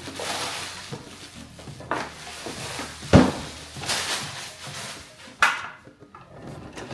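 Box and packaging being handled and opened: rustling with several knocks, the loudest a sharp thump about three seconds in and another about five and a half seconds in.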